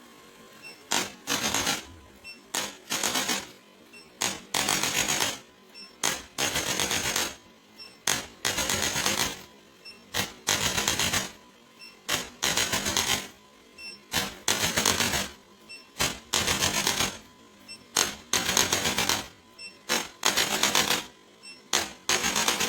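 A small motorized device rattling in repeated bursts, each about a second long, with roughly one burst every two seconds.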